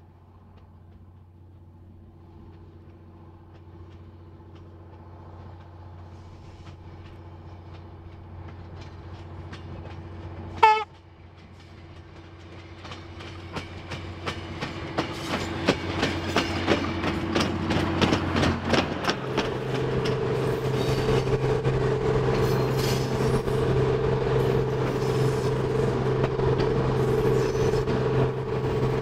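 Victorian Railways DERM 63RM diesel-electric rail motor approaching with a steady engine drone that slowly grows louder. About a third of the way in it gives one short, loud horn blast, then its wheels clatter louder and faster over the rails as it draws near. After a cut, a steady engine drone and wheel clatter heard from on board the moving train.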